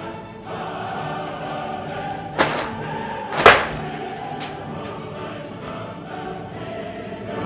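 Background choral music with singing, broken by two sharp knocks about a second apart near the middle, the second the louder.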